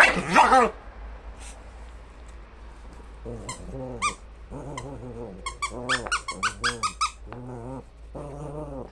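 Small dog growling in play during a tug-of-war over a plush toy, in repeated low growls, with a loud high squeal in the first second and a quick run of sharp high squeaks about six to seven seconds in.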